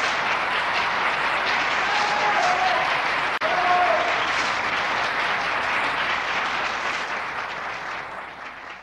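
Live audience applauding at the end of an opera aria on an old recording, with a few shouts rising above the clapping. There is a momentary dropout a little over three seconds in, and the applause fades out near the end.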